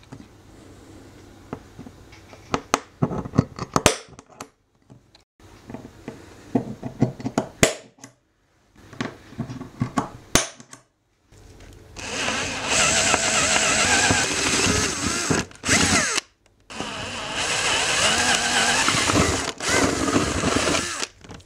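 An automatic centre punch snapping against aluminium sheet: a string of sharp single clicks as hole positions are marked. About halfway through, a power drill starts and runs steadily in two long stretches, drilling the marked holes in the aluminium panel.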